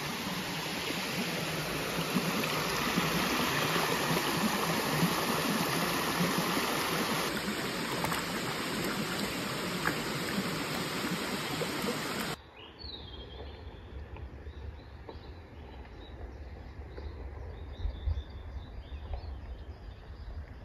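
Mountain stream rushing over rocks, with feet splashing in the shallow water in its middle part. About two thirds of the way through it cuts suddenly to a much quieter scene: a low steady rumble with small birds chirping.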